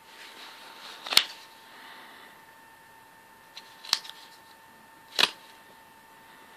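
Soft plastic coin flips holding gold coins being handled, crinkling faintly, with three sharp clicks: one about a second in, one near four seconds, and one about a second after that.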